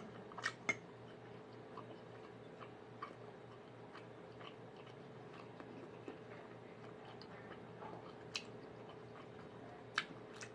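A metal fork clinking against a dinner plate a few times, twice about half a second in and twice near the end, with quiet chewing of rice and vegetables between, over a faint steady hum.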